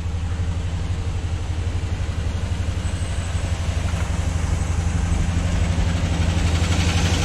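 Chevy 2500HD's 6.0 V8 running steadily, with a knocking noise from inside the block that the owner thinks could be a semi-stuck valve.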